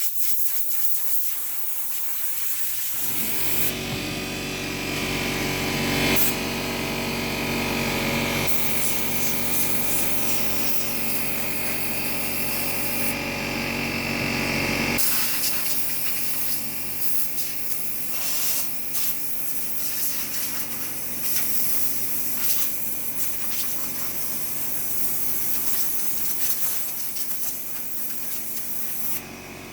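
Compressed-air nozzle hissing as it blows dust and debris out of an AC unit's coils. About three seconds in, an air compressor's motor starts running under it with a steady hum that eases off after about fifteen seconds.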